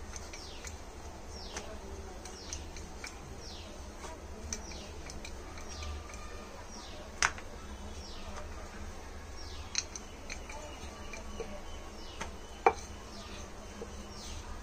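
Wooden rolling pin rolling stuffed paratha dough on a granite counter, quiet, with a few sharp knocks of the pin against the stone. Over it runs a steady low hum and a bird's short falling chirps, about two a second.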